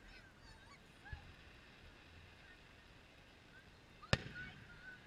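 Aerial firework shells bursting: a dull low thump about a second in and a sharp bang about four seconds in, the loudest sound, with a brief rumble after it. Short high calls sound scattered throughout.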